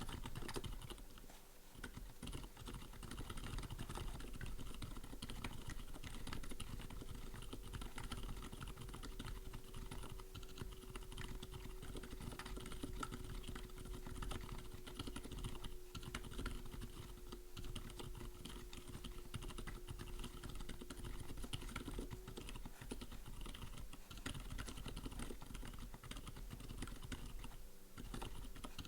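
Steady typing on a mechanical keyboard with Outemu silent tactile stems in lubed, filmed Gateron yellow housings: a dense run of soft keystrokes, with short lulls about a second and a half in and near the end.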